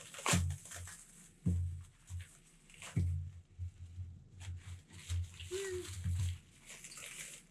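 Clear plastic bag crinkling and rustling in the hands in short irregular bursts as a small metal part is unwrapped.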